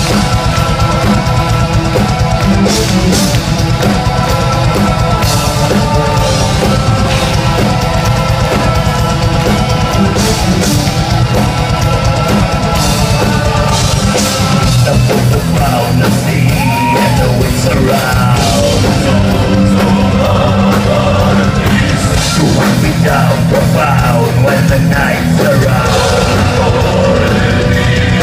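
Gothic metal band playing live at full volume: drums and distorted electric guitars, with a voice singing over them in the second half.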